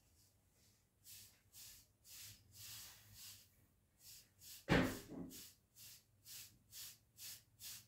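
Soft hairbrush bristles swept over short wavy hair, brushing 360 waves, in a steady rhythm of about two to three short swishing strokes a second after a brief pause at the start. A single louder thump cuts in about five seconds in.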